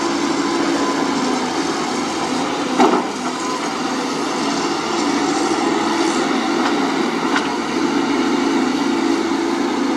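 Sunward SWE210 crawler excavator's diesel engine running steadily under working load as the machine swings its boom and digs its bucket into soil. A sharp knock about three seconds in, with lighter clicks later.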